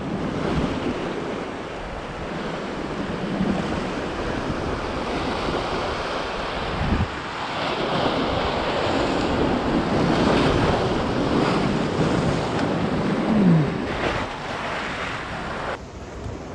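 Ocean swell surging and breaking into white water against coastal rocks, swelling and easing with each wave, with wind buffeting the microphone.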